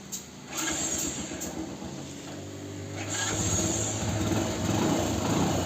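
Hero Passion Pro's electric self-starter cranking the single-cylinder four-stroke engine, its starter motor rebuilt with a new bearing. About three seconds in, the engine catches and settles into a steady idle.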